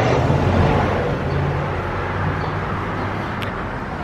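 Road traffic: a vehicle passing close by on the street, its engine and tyre noise loudest at the start and fading away over a few seconds.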